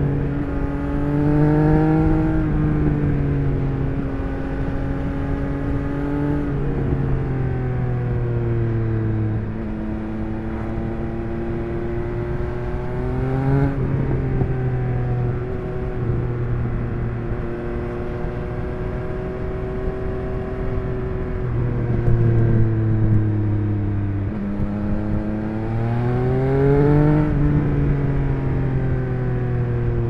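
Stock exhaust of a 2021 Triumph Speed Triple 1200 RS's inline three-cylinder engine under way. The engine note climbs and eases off several times, with a few sudden drops in pitch along the way.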